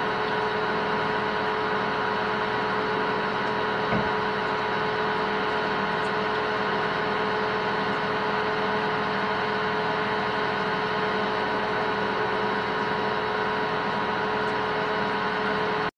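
Metal lathe running steadily with a constant hum while a cobalt drill bit, fed from the tailstock, bores into the workpiece. A single short knock about four seconds in.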